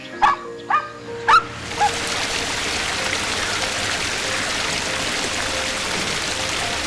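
A dog barking, four short sharp barks in quick succession over the first two seconds. After that there is a steady hissing noise.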